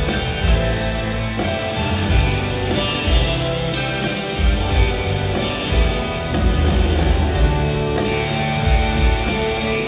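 Live rock band playing an instrumental passage: electric guitars over drums and keyboards, at a steady mid tempo, with the reverberant sound of a large arena.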